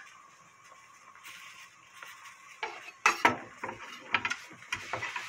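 A steady hiss from the soup boiling on the gas stove, then from about two and a half seconds in a run of clinks and knocks as a kitchen knife is handled on a wooden cutting board, loudest about three seconds in.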